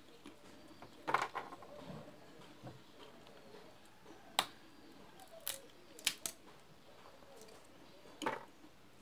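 Boiled peanut shells being snapped open by hand: a scattering of sharp cracks, a few in quick succession about a second in, then single and paired snaps through the middle and one more near the end.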